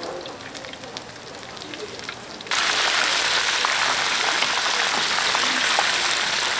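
Light crackling, then about two and a half seconds in a sudden jump to a loud, steady hiss.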